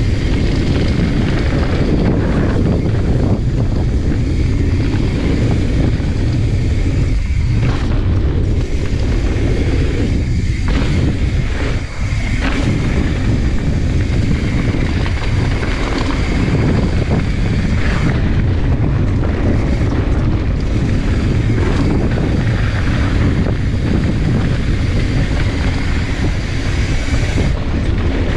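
Steady rumble of wind buffeting the camera microphone, mixed with tyre and trail noise from a mountain bike descending a dirt downhill trail at speed. A few brief knocks come from bumps along the way.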